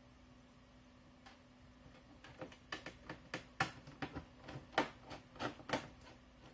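Plastic laptop screen bezel being pulled and pried at its corner: a run of about a dozen irregular sharp clicks and snaps as its clips work loose.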